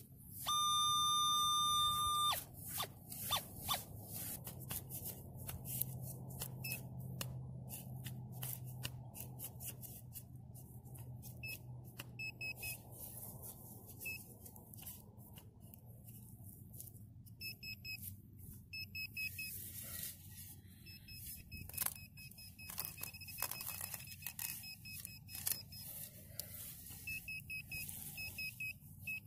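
Metal detector sounding a steady, loud target tone for about two seconds as the coil passes over a buried target. Scraping and clicking of a digging knife cutting into turf follows. From about twelve seconds in, a pinpointer gives runs of rapid high beeps while it probes the hole.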